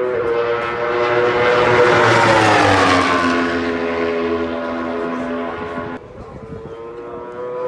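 Aprilia racing motorcycle at speed on the circuit straight, its engine note growing louder and then dropping in pitch as it passes by about two to three seconds in, then holding a lower steady note. The sound changes abruptly near the end to a quieter, steadier engine note.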